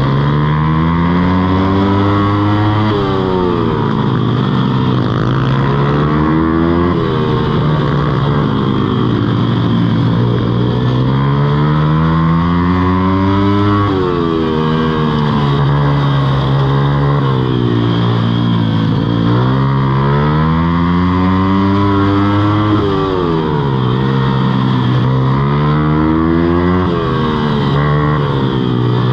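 Mini moto engines revving, climbing in pitch and dropping back every few seconds, as under acceleration and easing off through turns, with more than one engine heard at once at times.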